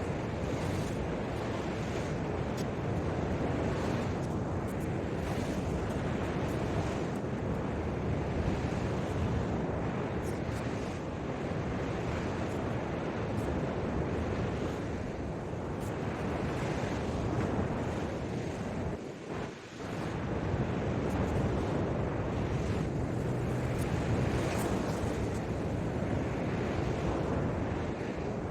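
Ocean surf washing onto a beach, with wind buffeting the microphone, and a brief lull about two-thirds of the way through.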